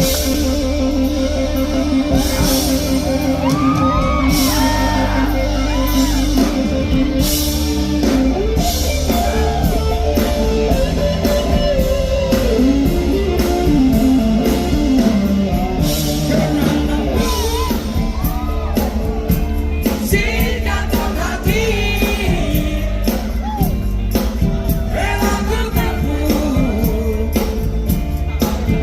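Live rock band playing with a singer, in the echo of a large hall or venue. Held instrument notes open the passage, and singing comes in over the band about a third of the way through.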